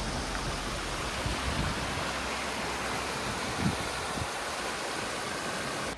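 Shallow rocky stream rushing over stones and small cascades in a steady, even hiss of running water, with a brief low thump about two-thirds of the way through.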